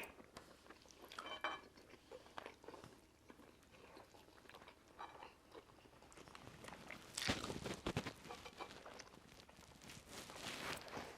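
Faint eating sounds: chewing and mouth noises of people wolfing down chicken korma and rice, with scattered clicks. About seven seconds in there is a louder cluster of clicks and scrapes, and another near the end.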